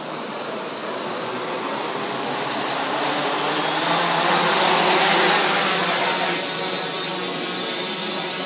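Quadrotor's four electric motors and propellers spinning up with a high whine, getting louder over the first five seconds. The craft then lifts off and settles into a steady hover hum.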